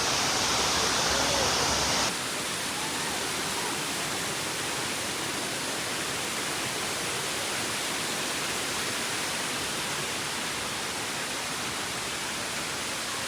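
Steady rushing of water falling down a man-made waterfall. About two seconds in, the sound suddenly drops a little in level and loses some of its hiss.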